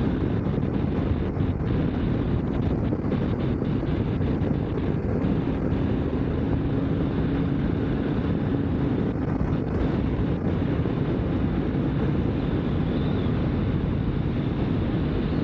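KTM 890 Adventure R parallel-twin running at a steady cruising speed, heard under steady wind noise on the rider's microphone. A low steady engine note stands out for a few seconds in the middle.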